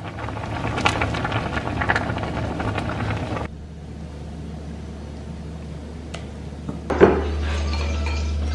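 Pot of noodle soup bubbling and crackling at a full boil for about three and a half seconds. After a sudden cut it goes quieter, with a sharp clink of utensils and bowls about seven seconds in and a steady low hum.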